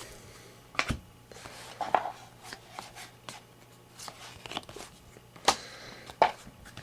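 Trading cards being handled and flipped through by hand, with light cardboard ticks and slides and a few sharper snaps, the loudest about a second in, about two seconds in, and twice near the end.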